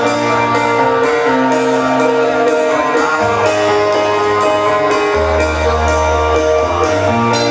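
Live rock band music: a keyboard, bass notes that change every couple of seconds, and a steady beat of cymbal ticks from the drum kit, at the start of the tune.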